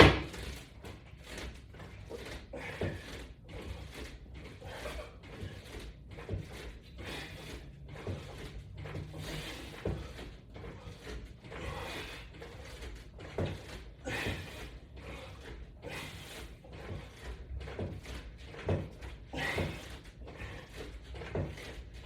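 Repeated light knocks and clicks from resistance-band exercise gear on a wall-mounted latch bar, worked through pull-down crunches.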